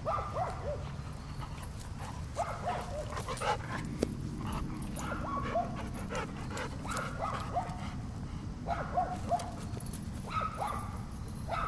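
Excited dogs whining and yipping during a game of fetch: short, high calls that bend up and down, coming in clusters every second or so.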